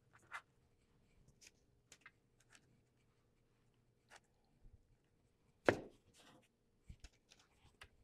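Faint scattered rustles and light ticks of grated cheddar being sprinkled by hand onto hot dog buns on a parchment-lined sheet pan. A single sharper knock comes a little past the middle, with a few smaller taps near the end.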